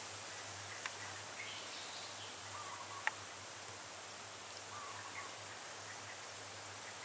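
Outdoor woodland ambience: a steady high hiss with a few faint, short bird chirps, and two small sharp clicks about one and three seconds in.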